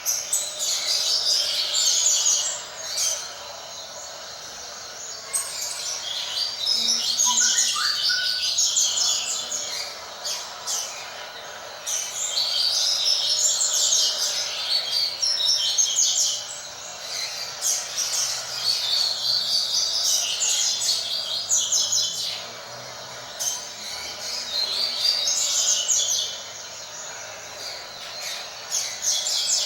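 Double-collared seedeater (coleiro) singing its song in repeated high-pitched phrases of several seconds each, with short pauses between them, about six phrases in all.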